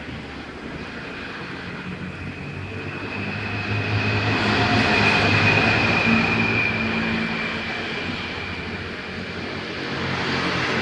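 A small electric motor running steadily with a hum and a whine; it swells louder about halfway through, then eases off.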